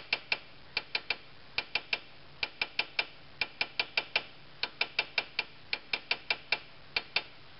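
Ball-peen hammer tapping lightly on a steel car ball joint and control arm, sharp metallic ticks in quick runs of three or four with short pauses between. The taps are seating the new ball joint's tapered stud in the steering knuckle so the castellated nut can grab.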